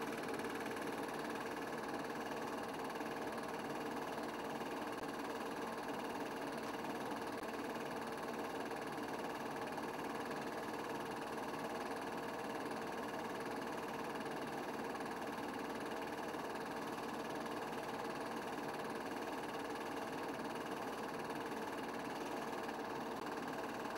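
A steady, unchanging hum with hiss.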